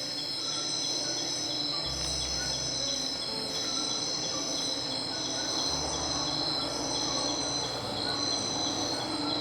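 Night insect chorus of crickets trilling steadily, with one high trill pulsing on and off about once a second and a low hum fading in and out.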